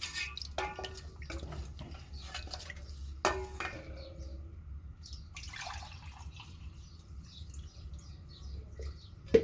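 Broth and water being poured into a cooking pot, splashing and dripping irregularly; a sharp knock right at the end.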